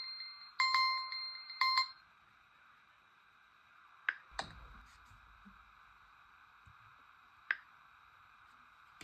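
A phone's alarm tone ending: a couple of bell-like chime notes, the last about two seconds in, then low hiss with a few faint clicks.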